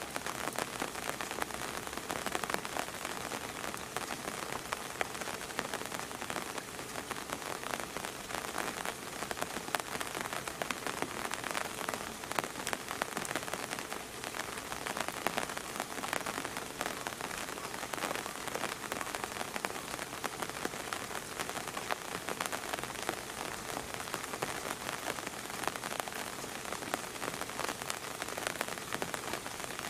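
Steady rain falling: an even hiss made of many small drop impacts, without pause.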